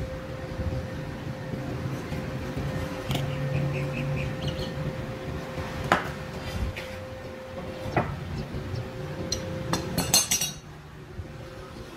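Metal hand tools clinking and knocking against a steel trolley axle beam: scattered sharp clinks, with a quick cluster of them about ten seconds in, over a steady hum.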